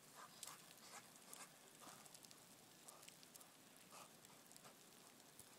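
Near silence, with faint, irregular soft crackles scattered throughout.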